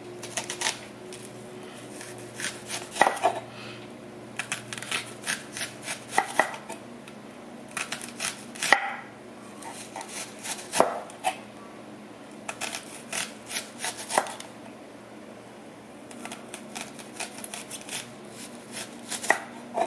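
Chef's knife slicing a red onion on a wooden cutting board: short quick runs of knife strokes tapping the board, separated by brief pauses.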